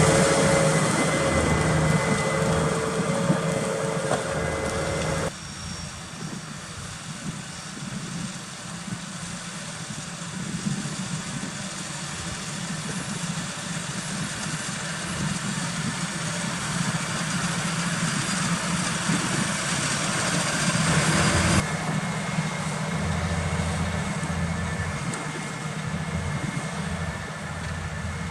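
Claas Axion 830 tractor's six-cylinder diesel engine running steadily while ploughing. The sound changes abruptly about five seconds in and again near twenty-two seconds, as the shots change.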